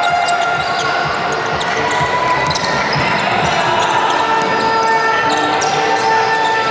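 Basketball game in a large gym: a ball bouncing on the hard court in a series of sharp knocks, with the echoing hubbub of players on the floor.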